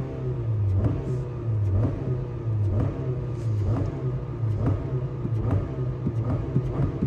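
Car engine being revved in repeated throttle blips, about one a second, the engine note rising and falling with each.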